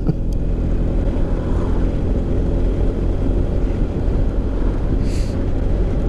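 BMW R 1250 GS Adventure's boxer-twin engine running steadily at cruise through a Remus Hawk slip-on silencer, with a brief hiss about five seconds in.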